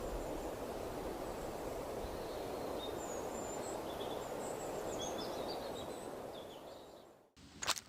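Steady wind blowing over the hilltop with small birds chirping faintly in the background; the wind fades away near the end and cuts off.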